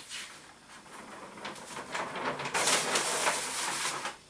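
A large flip-chart sheet being lifted and turned over the top of the pad: paper crackling, then a loud rustling near the end as the sheet goes over.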